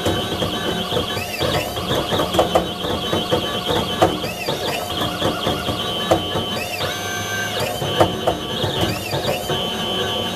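A computer-controlled diamond-head engraving machine at work, cutting lettering into a gold plate. Its motors whine up and down in pitch over and over as the head traces the letters, with a few sharp clicks and one briefly held steady tone partway through.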